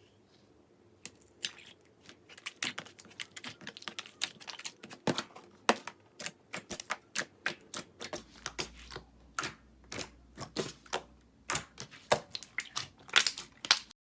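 Slime being pressed and worked by hand, making quick, irregular popping clicks, several a second, that start about a second in.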